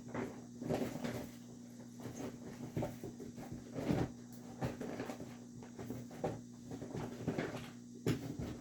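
Art supplies being picked up and set down on a table: a string of light knocks, taps and rustles, over a low steady electrical hum.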